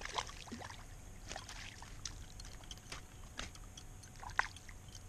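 Light water sloshing and small splashes beside a kayak, with scattered small ticks and knocks as a hooked pickerel wriggles on the line at the hull; one sharper tick a little over four seconds in.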